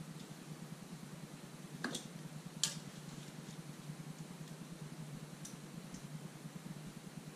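Caulking gun and silicone cartridge being handled: two sharp clicks about two seconds in, then a few faint ticks later, over a steady low room hum.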